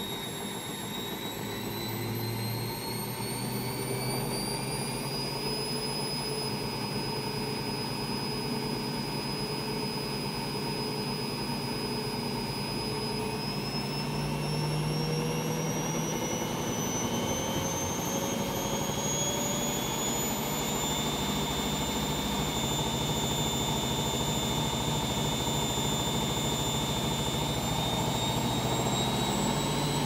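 Currys Essentials C510WM14 front-loading washing machine on spin with its drum empty, the motor and drum running with a steady whine that rises in pitch a few seconds in, holds, then climbs again in the second half as the spin speeds up. The owner suspects a broken drum spider.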